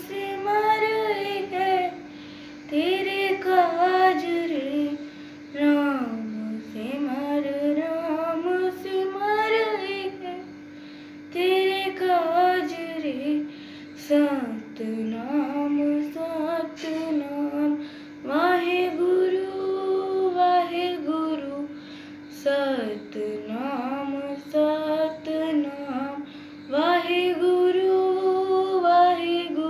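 A schoolgirl singing a Hindi devotional song (bhajan) solo in long, melismatic phrases with short breaths between them, over a steady held drone note.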